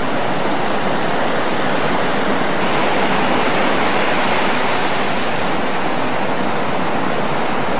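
Steady wash of breaking ocean surf, an even noise with no separate events.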